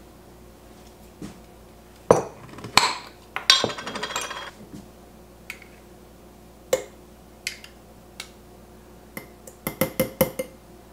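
A metal spoon clinking and scraping against glass jars as tomato paste is spooned from a small jar into quart mason jars: a few separate knocks, a rasping scrape about a second long near four seconds in, and a quick run of clinks near the end.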